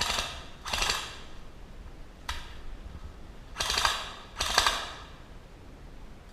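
Airsoft electric rifle firing four short full-auto bursts, each a fast rattle of about half a second, with a single sharp click between the second and third bursts.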